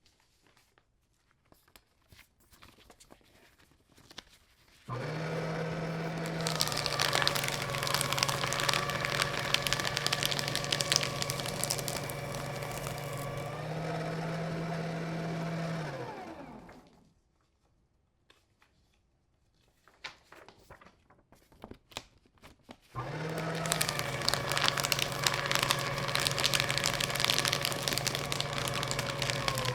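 Electric paper shredder cutting paper in two runs. The motor starts abruptly about five seconds in, and its hum drops in pitch under load as sheets are fed through with a dense crunching crackle. The hum rises again as the paper clears, then winds down with a falling whine just past the middle. Faint rustling and clicks fill the pauses, and the shredder starts again about three-quarters of the way in and is still cutting at the end.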